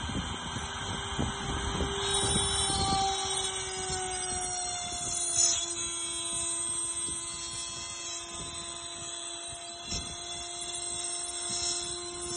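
CNC router spindle running with a steady whine while its engraving bit cuts a groove into a cylinder turning on the rotary axis. The pitch sinks slightly over the first few seconds, then holds, and irregular ticks of the cut come through in the first three seconds.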